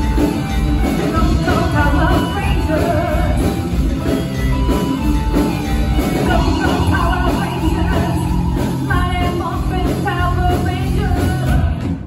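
A live rock band playing, with electric guitar, bass guitar, drums and keyboard, and a singer carrying the melody.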